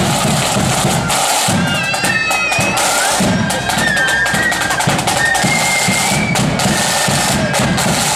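Marching band playing: snare drums rattling and a bass drum beating steadily under a high-pitched melody.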